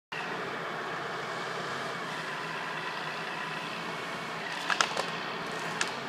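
Diesel engine of a wheeled forestry harvester running steadily, with a few sharp knocks about three-quarters of the way through.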